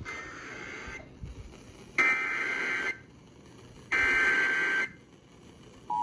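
Emergency Alert System header received over a radio: three buzzy data bursts of about a second each, the first fainter, announcing a flash flood warning. Near the end the steady two-tone EAS attention signal begins.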